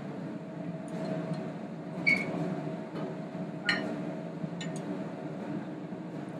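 Knife and fork clinking against a china plate a few times, sharp clicks with a short ring, while a chicken fried steak is cut up, over a steady fan hum.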